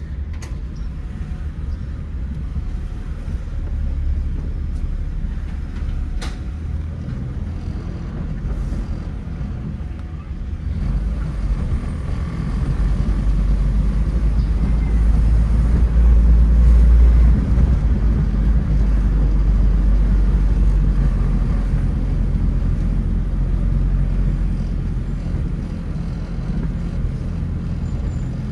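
A 2006 Honda Fit's 1.3-litre L13 four-cylinder engine and road noise as the car drives, a steady low rumble. It builds louder about halfway through, then eases off gradually.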